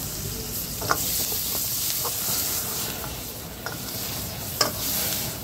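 Food sizzling in a hot iron wok while a steel ladle stirs and scrapes it, with two sharp metal clanks of the ladle against the wok, about a second in and near the end.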